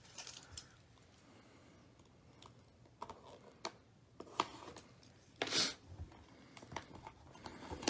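Hands tapping, gripping and sliding shrink-wrapped cardboard trading-card boxes: scattered light taps and clicks, with a louder rustle about five and a half seconds in.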